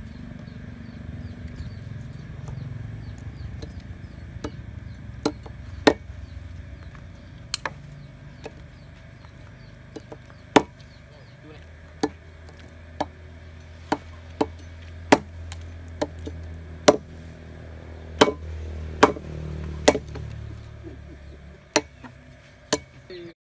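A broad-bladed chopping knife striking a green forked branch laid on a dry log, cutting and shaping it. About twenty sharp chops come at uneven intervals, roughly one a second, over a steady low rumble.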